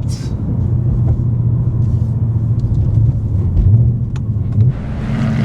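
Ford Mustang on the move: a steady low engine and road drone, with no flapping from the drive shaft, whose loose sticker has just flown off. A rushing hiss swells near the end.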